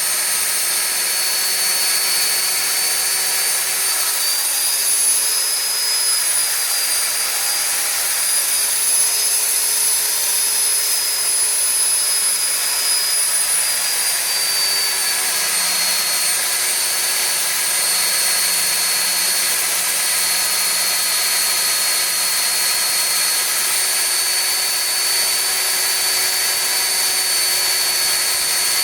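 Core drill boring through a concrete wall. Its motor gives a loud, steady high-pitched whine over the grinding of the bit. The pitch sags and recovers a little as the bit loads up.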